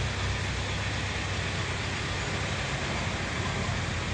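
Steady low hum and rumble inside a 71-605A tram car standing still, with street traffic noise coming through.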